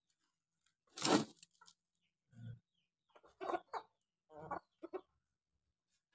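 Free-range village chickens clucking, with one short, loud, harsh burst about a second in, followed by several soft clucks in two groups.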